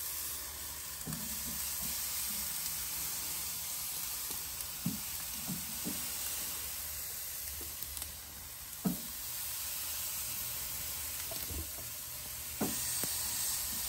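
Raw chicken leg quarters sizzling on the hot grate of a Kamado Joe ceramic grill over lump charcoal as they are laid down one by one. A steady hiss with a few short knocks as pieces go onto the grate.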